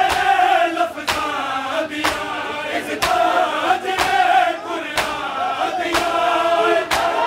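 A group of male mourners chant a Punjabi noha in loud unison. Sharp hand strikes of matam (rhythmic chest-beating) keep time about once a second.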